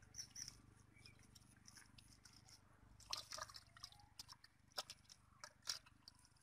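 Faint wet squelching and small splashes of hands working mud and muddy water in a shallow hole, with a scattering of short sharp wet clicks, the loudest about three seconds in and near five to six seconds in.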